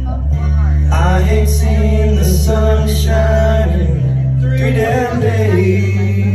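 A man singing karaoke into a handheld microphone over a loud backing track with steady bass notes.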